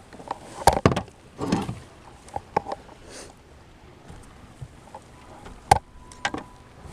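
Scattered sharp knocks and clunks of handling on a fishing kayak: two close together about a second in, a rustle just after, and another sharp knock near six seconds.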